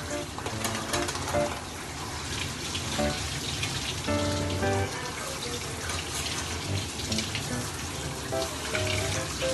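Water from a handheld shower head spraying and pattering onto a wet Pomeranian's coat and the stainless steel grooming tub, with background music.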